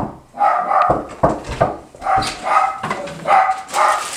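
A dog barking repeatedly, in short barks about every half second.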